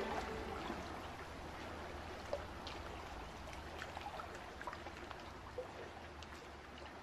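Faint trickling water with scattered small drips, slowly fading out, as the last notes of the music die away in the first second.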